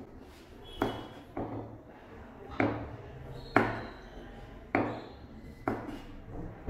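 A chef's knife slicing through a firm vegetable and knocking on a plastic cutting board: about six separate sharp cuts, roughly one a second and unevenly spaced, as the vegetable is cut for a julienne.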